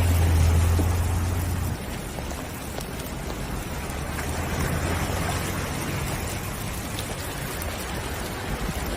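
Heavy rain falling, a steady even hiss. A low rumble runs under it for the first couple of seconds and then stops abruptly.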